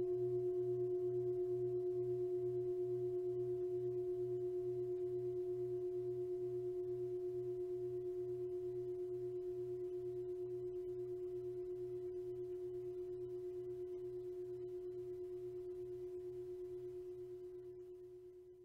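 Metal singing bowl ringing with one steady pitched tone and a slow wobble about twice a second, slowly dying away and fading out at the end.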